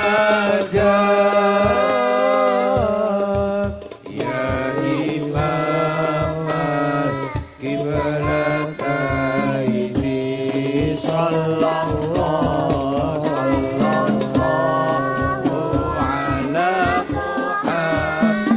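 Sholawat, an Islamic devotional song, sung by a lead voice holding long, wavering melodic lines over a steady low accompaniment and a regular hadroh frame-drum beat.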